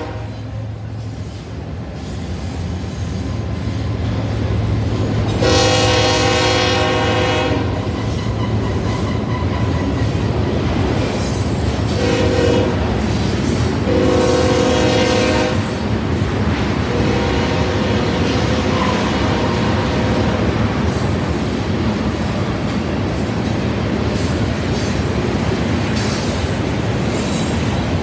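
Manifest freight train rolling past with a steady rumble, its lead locomotives' air horn sounding a long blast about five seconds in, then a short blast and another long one a few seconds later, with a fainter tone after. In the second half, high, thin wheel squeals come from the passing cars.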